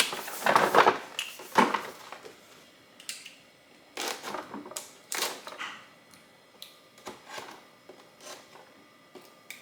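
A cardboard tool-set box being opened carefully and its contents handled: scattered clicks, taps and rustles. They are busiest in the first two seconds and again around four to five and a half seconds in.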